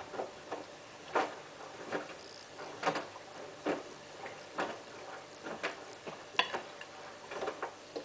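Hotpoint Ultima WT960 washing machine drum turning during the first rinse: wet laundry drops and splashes in the rinse water roughly once a second, over a faint steady hum.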